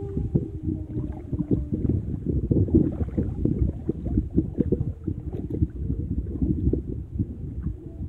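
Sea water sloshing and knocking against a phone's microphone held at the surface by a swimmer: a muffled, low, uneven churning with many small thumps. A faint steady hum fades out about a second and a half in.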